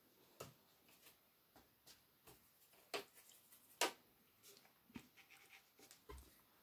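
Faint, scattered clicks and taps of a paintbrush against a metal watercolour palette as paint is mixed, loudest about three and four seconds in.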